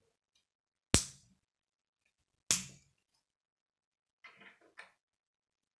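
Plastic K'nex rods and connectors snapping together: two sharp clicks about a second and a half apart, then a brief, softer clatter of plastic pieces near the end.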